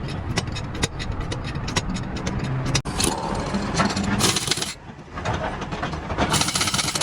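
Rapid metallic clicking from hand tools at work on a truck wheel, about three to four clicks a second, broken by two short bursts of hiss about four and six seconds in.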